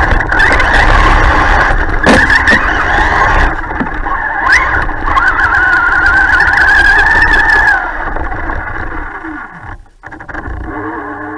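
Traxxas Stampede 4x4 RC truck's electric motor and drivetrain whining as it drives hard through snow, the pitch rising and falling with the throttle, with a couple of sharp knocks. About eight seconds in the whine winds down and drops out briefly, then comes back at a lower pitch.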